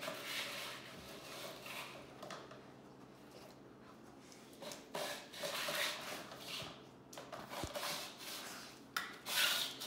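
A dog's nose and muzzle pushing and rubbing at a small plastic three-drawer storage unit. The plastic scrapes and rattles in several short spells, with a quieter stretch in the middle.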